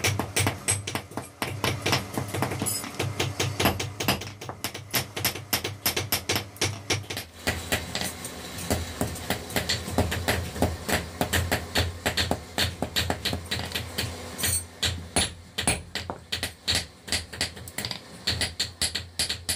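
Hammers striking red-hot steel on a steel anvil block in a fast, steady run of blows, about three a second, as a pliers blank is forged.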